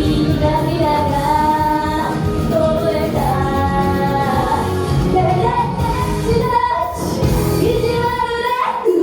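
Female J-pop idol group singing live over a loud pop backing track with a steady beat; the bass drops out briefly near the end.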